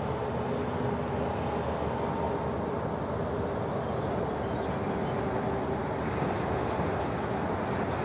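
Steady outdoor background noise, an even rumble with a faint held hum and no distinct events.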